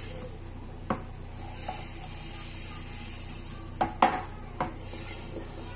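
Couscous grains tipped from a plate into a stainless steel couscoussier, with a few light knocks of the plate against the pot, the loudest about four seconds in.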